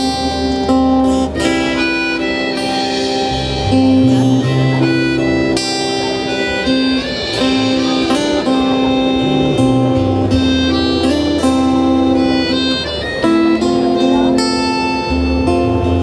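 A live band plays an instrumental passage of a pop song, the accordion holding chords over a moving bass line.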